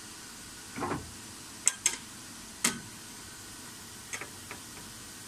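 Sharp metal clicks and knocks as parts and clamps are handled in the bed of a milling machine, over a steady hiss. A duller knock comes about a second in, then three sharp clicks in quick succession and a few lighter ones near the end.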